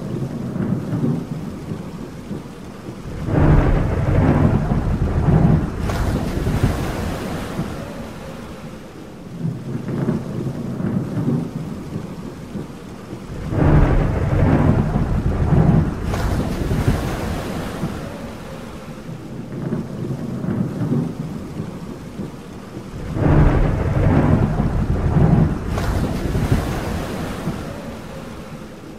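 Thunder rolling three times, about ten seconds apart, each roll lasting several seconds, over a steady hiss of rain.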